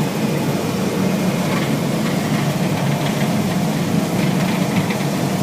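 Combine harvester running steadily while combining soybeans, heard from inside the cab: a constant low machine hum with no change in pace.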